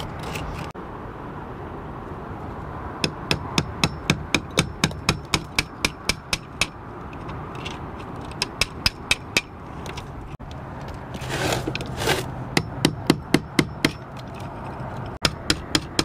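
Hammer tapping a screwdriver used as a chisel to chip stucco away from the edge of an opening: several runs of quick, light metal-on-metal strikes, about four a second, with pauses between runs. A short scraping sound comes between the later runs.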